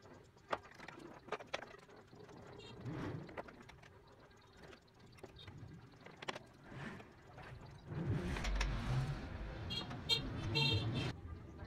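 Light clicks and knocks of carved wooden parts being handled and set against each other on a wooden model car body. In the last few seconds a louder low rumble comes in with several short high beeps.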